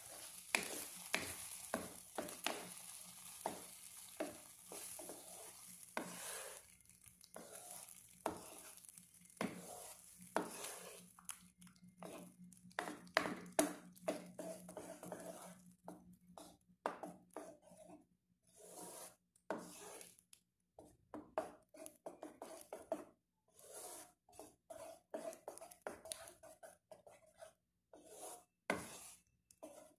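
Wooden spoon stirring a thick white sauce in a nonstick pan: repeated, irregular scrapes and knocks of the spoon against the pan. A faint steady hiss under the first half fades out about halfway through.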